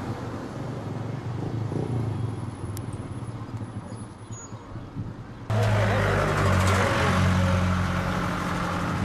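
Steady low motor-vehicle engine hum with outdoor noise. About five and a half seconds in, it cuts abruptly to louder engine and road noise.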